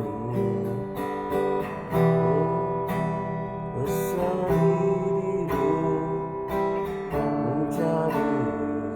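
Acoustic guitar strummed and picked in a steady rhythm, an instrumental passage with no singing.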